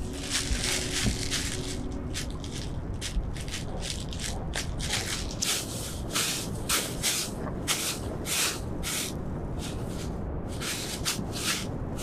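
Short, irregular crunching and rustling noises, about one or two a second, with soft background music that fades out in the first two seconds.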